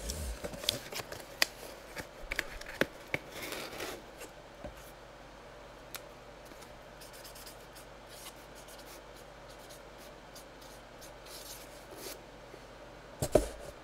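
Small handling sounds from hands working with objects: clicks, rubbing and scraping, busiest in the first four seconds, then sparse faint ticks, and a sharp knock near the end.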